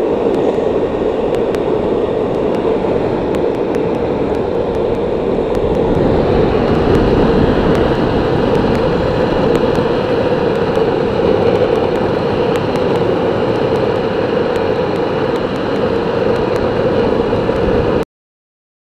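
Skateboard wheels rolling fast down an asphalt road: a steady rolling rumble with scattered light clicks, cutting off suddenly near the end.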